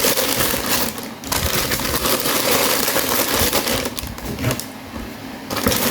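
Rustling and crinkling of things being handled, a dense crackly noise that eases off briefly twice.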